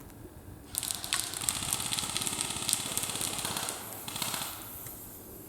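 Airsoft electric gun firing full-auto: a fast mechanical rattle that starts about a second in and runs about three seconds, followed by a shorter burst.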